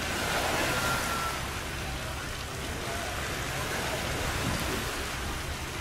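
Fast river water rushing and churning through a sluice gate against the current, a steady wash of noise, with the low drone of a wooden cargo boat's engine beneath it.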